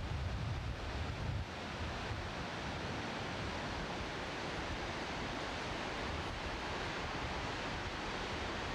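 Steady roar of Niagara Falls' water plunging into the gorge, an even rushing hiss. Wind buffets the microphone with a low rumble for the first second and a half, then drops away.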